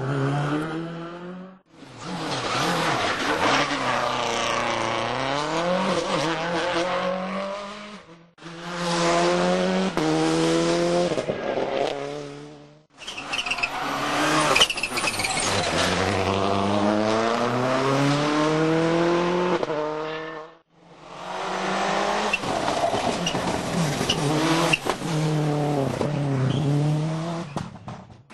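World Rally Cars' turbocharged four-cylinder engines revving up and down through the gears at racing speed, with tyre squeal. It comes as five short clips cut together, with brief dips to silence between them.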